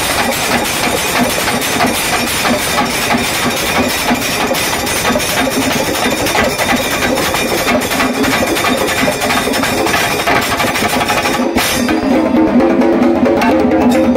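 Chenda drums beaten with sticks together with ilathalam hand cymbals in a chenda melam: dense, rapid beating with the cymbals' clash ringing over it. Near the end the cymbal clash drops away and a lower pitched sound with several tones comes to the fore.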